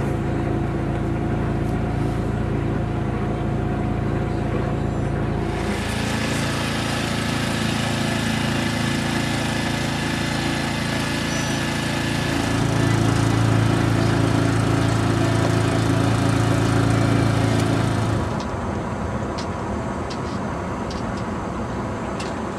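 Small outboard motor on a sailboat's transom running steadily at low speed, a motor still being broken in. A rushing hiss joins about six seconds in, the motor's hum is loudest from about thirteen to eighteen seconds in, and both drop back near the end.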